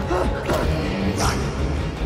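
Tense film score with sharp hits about half a second and a second and a quarter in.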